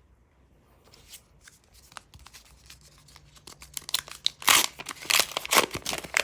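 Trading-card pack wrapper being torn open and crinkled by hand: light rustles and clicks at first, then loud tearing and crinkling near the end.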